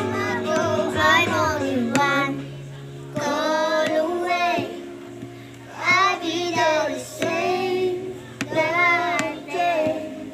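Two children, a young girl and a boy, singing a pop song together in sung phrases, with a short lull about halfway through.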